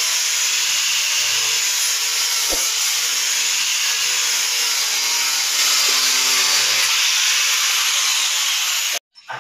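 Electric angle grinder fitted with a sanding disc, running steadily as it sands the face of a wooden door. The sound cuts off suddenly near the end.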